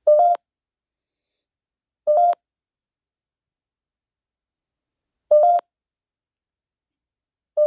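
Short electronic beeps from a phone's ghost-hunting app, each about a third of a second with a small step up in pitch, repeating every two to three seconds.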